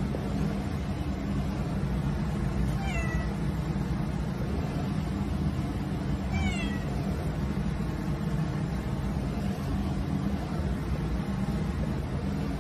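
Domestic cat meowing twice, each a short high call falling in pitch, about three seconds apart, over a steady low background rumble.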